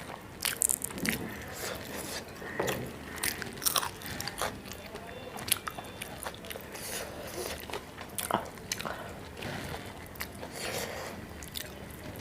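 Close-miked eating sounds: chewing and biting a mouthful of rice and curry, with irregular sharp clicks and crackles throughout.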